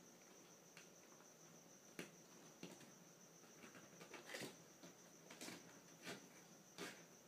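Faint rustles and soft thumps of a kitten pouncing and scrambling on bed covers, a handful of short scuffs at irregular intervals, over a steady faint high whine.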